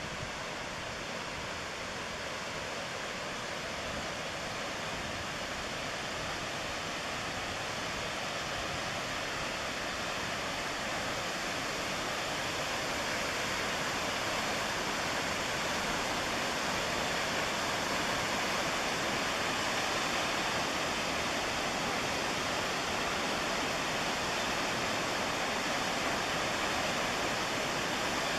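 Rushing water of the McKenzie River: a steady, even roar of white water with no separate splashes, slowly growing louder over the first two-thirds and then holding.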